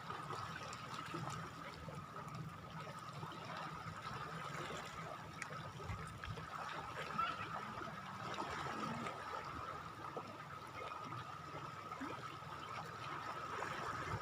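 Shore water lapping and trickling steadily, with a faint steady high tone underneath.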